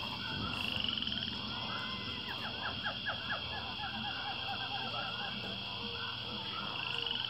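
Outdoor animal calls: many short, repeated chirps over a steady high-pitched buzz, with a brief rising buzz near the start and again near the end.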